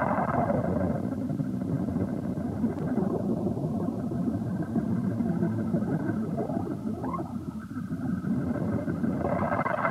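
Dense, rumbling noise drone in an improvised live electronic set, swelling near the start and again near the end, with a faint rising glide about seven seconds in.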